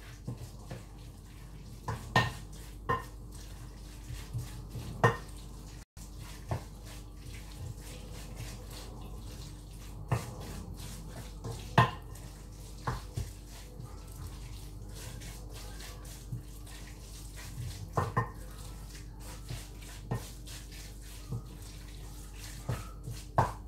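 A spoon stirring turkey meatball mixture in a glass mixing bowl, knocking and scraping against the glass in irregular clinks every second or two.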